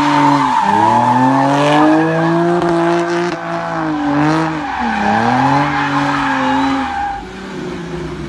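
A car engine revving up and down, its pitch dipping and climbing several times before fading out about seven seconds in.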